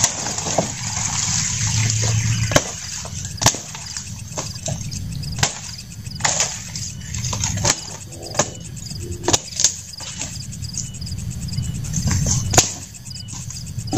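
Thin wooden branches being chopped and snapped. There are about a dozen sharp cracks at irregular intervals, and leaves rustle in the first couple of seconds as a sapling is pulled.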